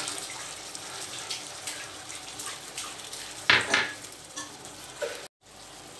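Potato and papaya pieces frying in hot mustard oil in a kadai, sizzling steadily as a wet spice paste is poured in, with faint crackles. A brief louder noise about three and a half seconds in.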